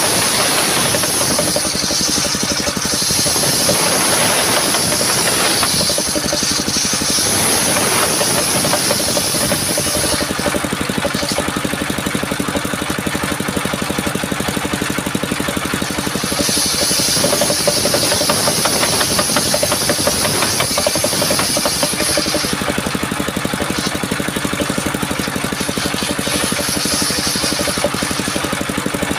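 Engine-driven mobile circular sawmill running steadily, with a high hiss from the saw cutting through coconut palm trunk in three long stretches and the engine alone in between.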